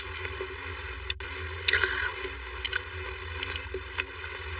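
Close-up wet eating sounds of a person chewing soft, creamy mousse cake: scattered short mouth clicks and lip smacks, roughly one a second, over a steady low hum.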